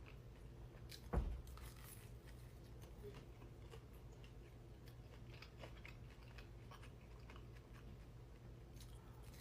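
A person chewing and biting food, faint clicks and crunches scattered throughout, with one soft thump about a second in.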